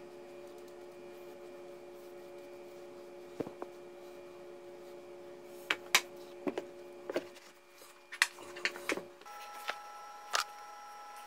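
Sharp knocks and clatters of wood on wood as a wooden sand-casting flask and a brush are handled on a wooden bench, over a steady low hum.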